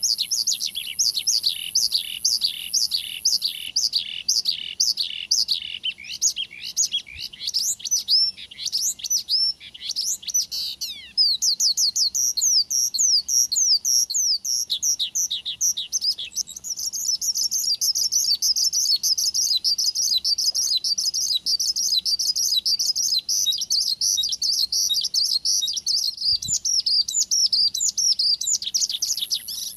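Branjangan (Australasian bush lark, Mirafra javanica) singing a long, unbroken song of rapid, repeated downward-sweeping chirps, several a second. About halfway through the song shifts to a denser, higher twittering.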